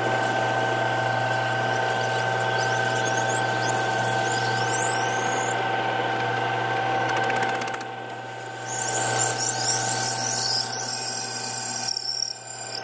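Mill-lathe combo running with a steady motor hum and gear whine while a 27/64-inch twist drill in the tailstock bores into spinning Delrin bar stock. High squealing from the cutting drill comes in twice, about four seconds in and again about nine seconds in.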